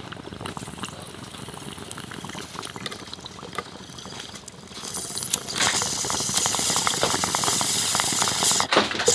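Water in a glass bong bubbling as smoke is drawn through it. The bubbling is soft at first and turns much louder and faster about halfway through, with a brief break near the end.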